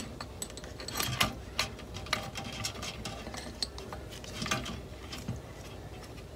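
Metal tools and carburetor parts clinking and scraping inside a metal can of carburetor-cleaner dip as the parts are fished out, in irregular clinks with a few louder ones about a second in and again around four and a half seconds.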